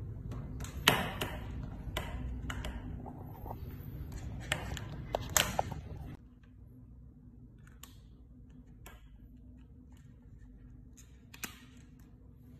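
Sharp plastic clicks and knocks from handling a smartwatch and its snap-on protective case. For the first six seconds there is a low rumble of hand noise on the microphone, then quieter, sparser clicks with one clearer click near the end.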